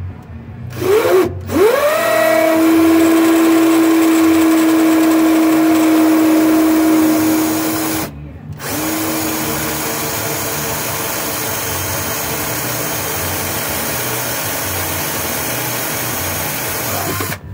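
Power drill spinning up and running steadily, drilling out the hole in a plastic evap valve. It stops briefly about eight seconds in, then runs again a little quieter to near the end.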